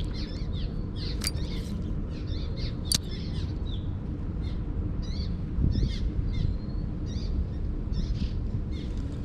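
Birds chirping and singing in short repeated phrases over a steady low rumble, with two sharp clicks in the first three seconds.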